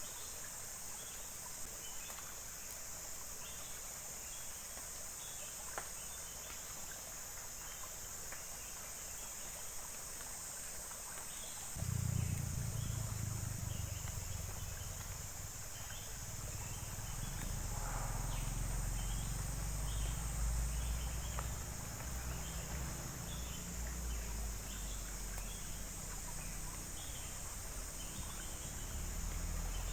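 Outdoor insect chorus, a steady high-pitched buzzing with faint scattered chirps. About twelve seconds in, a low rumble sets in and continues underneath.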